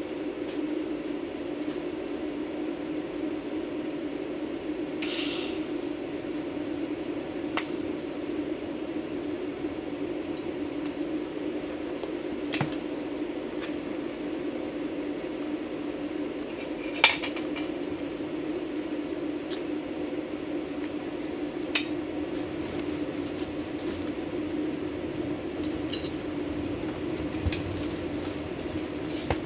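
Small neodymium magnets and a steel box cutter blade clicking and clinking as they are set down on a steel welding table: a scattering of sharp metallic clicks a few seconds apart, with a brief rasping burst about five seconds in. A steady low hum runs underneath.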